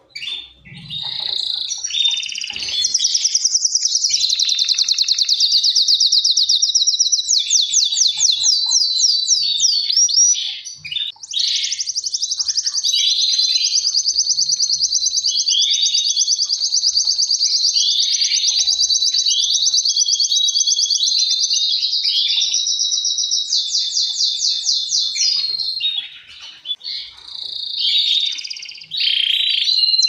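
Male canary song: long, very fast, high-pitched trills and rolls, each held for several seconds before switching to another trill, with a short pause about ten seconds in and softer, broken phrases near the end.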